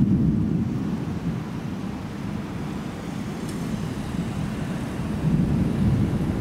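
Low rolling thunder, loud at first, easing off, then swelling again about five seconds in.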